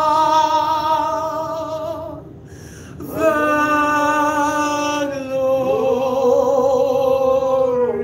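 Slow worship singing: long held notes with a wavering vibrato, a second, lower line sustained beneath them. The sound drops away briefly about two seconds in before the next long note.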